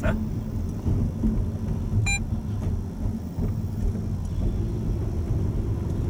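Steady road and engine rumble inside the cabin of a Honda Odyssey driving slowly through a toll gate. A short electronic beep sounds about two seconds in.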